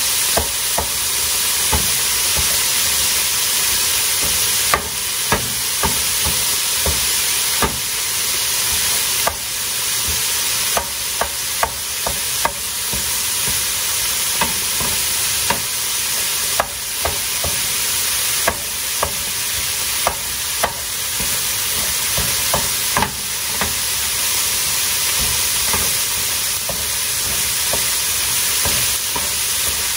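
Ground beef sizzling in a hot frying pan while a wooden spoon chops and stirs it, with irregular sharp knocks and scrapes of the spoon against the pan every second or so over a steady frying hiss.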